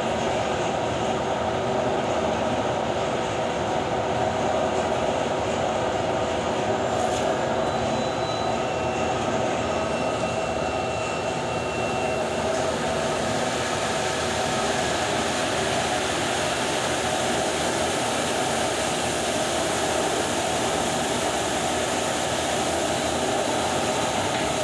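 Industrial laundry machinery running with a loud, even mechanical noise that holds steady throughout.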